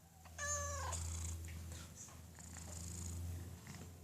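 Domestic cat giving one short meow that falls in pitch about half a second in, then purring steadily. It is begging for food.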